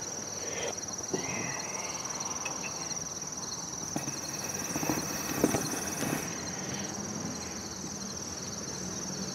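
Insects chirping steadily in a high, even trill, with a few light clicks and knocks of the equipment being handled.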